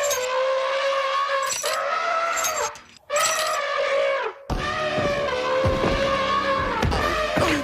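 Stock Hollywood elephant trumpet sound effect: three long elephant trumpet calls, each held on one steady pitch. The first and last fall off in pitch at the end, and the last has a low rumble underneath.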